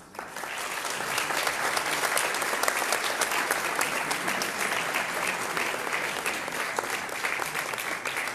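Audience applauding: dense clapping from many hands that starts suddenly and holds steady.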